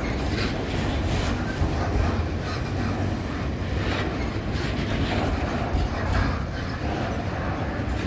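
Freight train wagons rolling past: a steady rumble of steel wheels on the rails, with irregular clicks over the rail joints.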